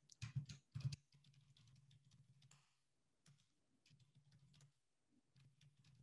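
Faint computer keyboard typing: a quick run of keystrokes in the first second, then scattered softer key taps.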